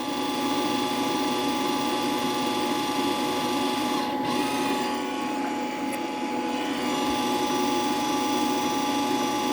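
Sherman Digimig 200 Pulse MIG welder's wire feed motor and drive roller running steadily, a continuous whir with a steady whine. It dips a little in level around the middle and picks up again about seven seconds in: the feed speed hiccups after a feed-speed adjustment, sometimes slowing and sometimes speeding up.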